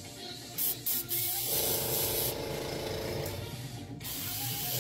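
Airbrush spraying paint with a hiss of air: two short bursts about half a second and a second in, then a steady spray that breaks off briefly near the end.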